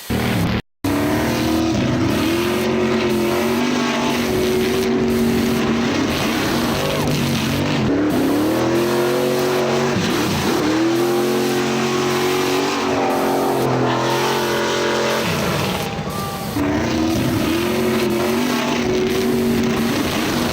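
Dubbed-in car engine sound effect: an engine revving hard and climbing in pitch, dropping at each gear change several times over.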